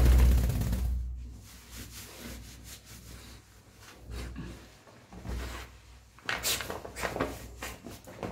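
A towel rubbing a wet dog's coat dry. It is loudest at the start, drops to quieter rustling, and a few sharper rustles come in the last two seconds.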